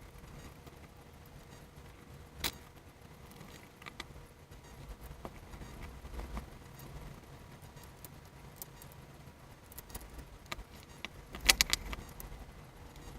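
Scattered light clicks and metallic clinks, like small hard parts being handled, with a quick cluster of louder clinks near the end over a low steady hum.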